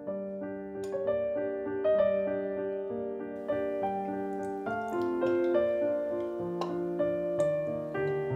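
Background music: an instrumental melody of held notes.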